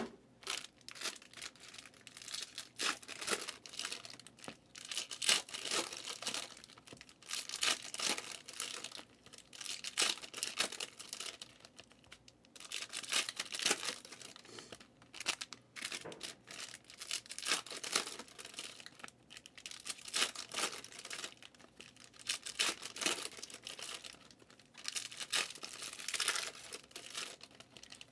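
Trading cards and their foil pack wrappers being handled: repeated short crinkling and rustling, every second or so.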